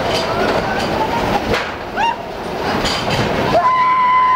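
Log-flume ride boat rumbling and clattering along through a dark stretch of the ride. Several short, high wordless cries from riders break in from about halfway, with one long held scream near the end.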